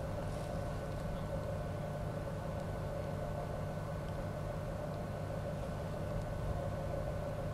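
A cargo ship's engine machinery running steadily: a low hum with a constant whine above it.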